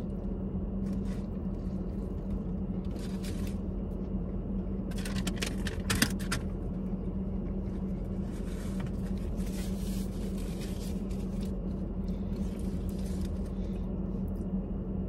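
Steady low hum and rumble of a running car heard inside its cabin, with a few brief crinkles of a foil sandwich wrapper and chewing noises about 1, 3 and 5 to 6 seconds in.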